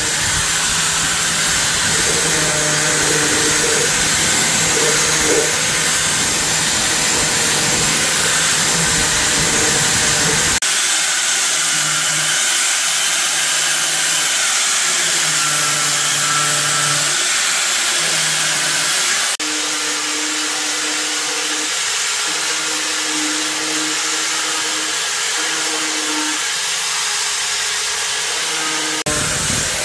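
Steady, loud hissing noise from a machine at work, with low hums that come and go. It changes abruptly twice along the way.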